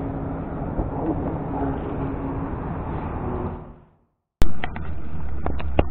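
Steady outdoor noise on a small fishing boat with a faint steady hum, fading out a little over halfway through. After a brief silence comes a sharp click, then a low hum with a run of quick clicks and taps.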